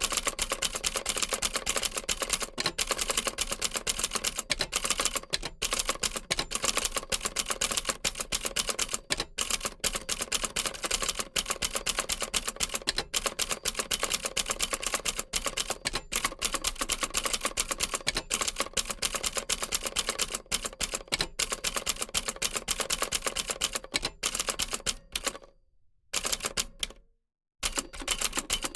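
Old typewriter typing away: a rapid, continuous clatter of key strikes, broken by two brief silences near the end.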